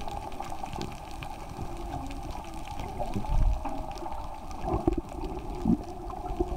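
Muffled underwater sound: a steady hum over low rumbling and gurgling water, with louder gurgles about three, five and six seconds in.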